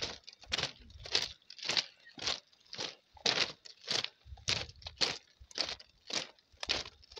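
Footsteps on a steel bar-grating walkway, about two steps a second, each a short sharp strike.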